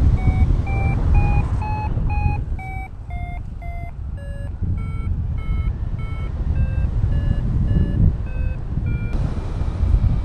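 Paraglider variometer beeping about twice a second, its pitch rising and falling as the climb rate changes, which is the sign of climbing in lift. Steady wind rush on the microphone runs underneath. The beeping stops about nine seconds in.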